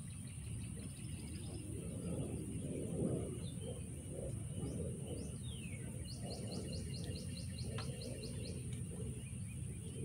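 Birds calling outdoors over a steady low rumble; about six seconds in, one bird gives a quick series of a dozen or so falling notes. A thin steady high tone runs underneath.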